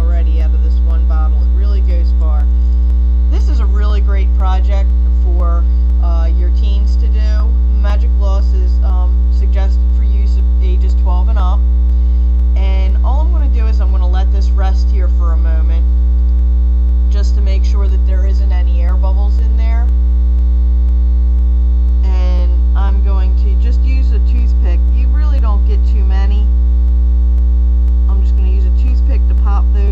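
Loud, steady electrical mains hum: a low buzz with a ladder of steady overtones, unchanging throughout and louder than anything else.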